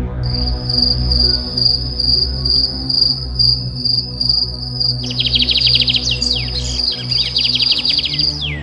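Ambient background music with a sustained low drone, layered with an insect's steady pulsing high chirp; from about five seconds in, rapid falling bird chirps join it.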